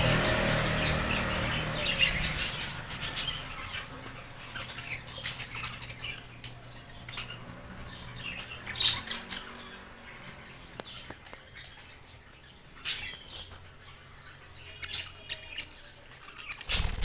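Baby budgerigar chicks giving short, scattered chirps and squawks, with a louder call about thirteen seconds in.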